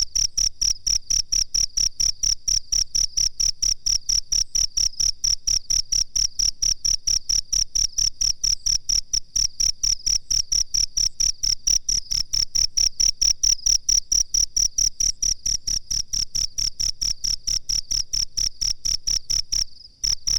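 Cricket chirping: a steady, even train of high-pitched pulses, about four to five a second, with one brief break near the end.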